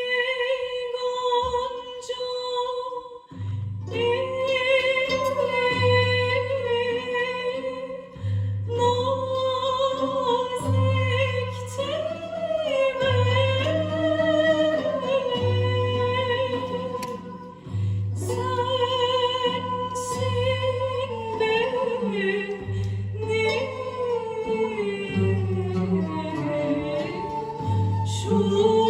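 Music with a woman singing long, held notes with vibrato; a steady pulsing bass comes in about three seconds in.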